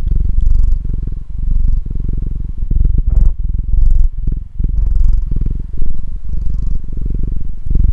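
Long-haired grey domestic cat purring, held right against a condenser microphone: a loud, low purr in long pulses with short breaks between them.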